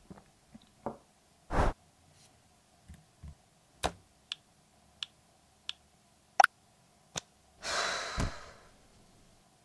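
Close-up handling sounds: a string of separate sharp clicks and taps. Around the middle come light ticks with a faint high ring, about two-thirds of a second apart, as an alarm time is set on a smartphone. A brief rustling swish follows near the end.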